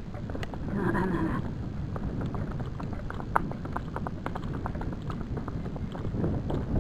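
A gaited horse's hooves striking a sandy dirt track in a quick, even rapid rhythm at a smooth four-beat gait, with a brief louder sound about a second in.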